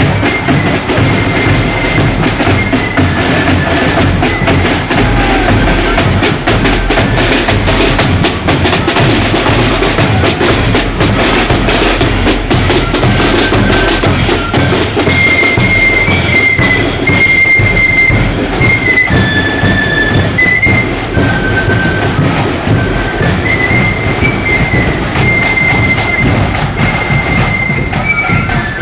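A marching flute band: flutes play a high, stepping tune over dense snare drumming and a bass drum.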